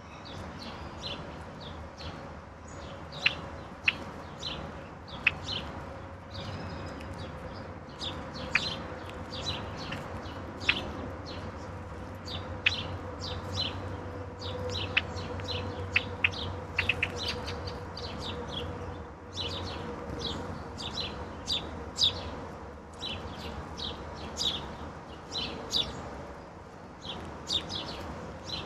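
Several backyard songbirds chirping and calling, many short sharp notes coming in quick scattered runs. A faint steady hum runs underneath.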